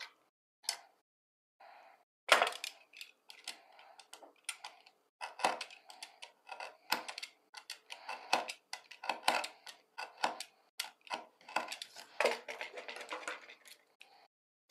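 Utility knife cutting through thin wooden popsicle sticks on a wooden cutting board: a long, irregular run of sharp clicks and knocks, the loudest about two seconds in.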